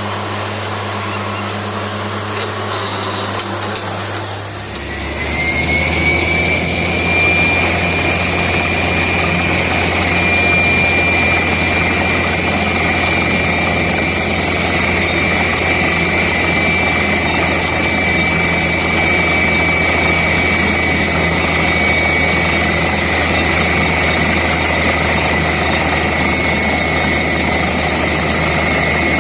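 Borewell drilling rig and its air compressor running. A steady engine hum shifts about five seconds in and grows louder, with a high whine that then holds steady.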